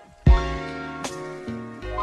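Intro music: sustained chords over deep bass hits that drop in pitch, one shortly after the start and another near the end, with a sharp high hit about a second in.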